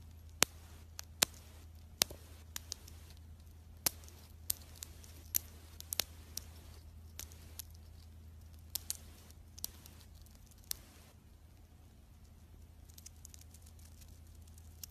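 Chipmunk nibbling and crunching a piece of food held in its paws: irregular, sharp, crisp crunches, sometimes several a second, thinning out to a few faint ones after about eleven seconds, over a low steady hum.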